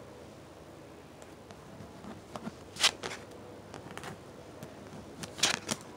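Playing cards being handled on a table during a card game: a few sharp clicks and taps over quiet room noise, the loudest about three seconds in and a quick cluster near the end.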